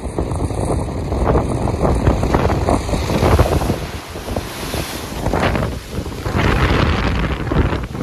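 Strong wind buffeting the microphone, over choppy lake water with waves breaking and splashing against a rock shoreline. The hiss of the water swells and falls in surges.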